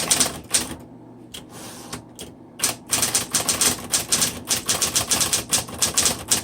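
Smith Corona Coronet Electric typewriter typing: a few key strikes, a short pause with scattered strokes, then a fast run of sharp typebar strikes, about five a second, over the steady hum of its electric motor.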